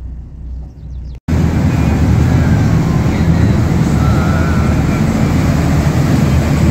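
A boat engine's steady low hum, then, about a second in, a sudden cut to a much louder mix: the dhow's engine running at cruising speed under the rush of its churning wake and wind on the microphone.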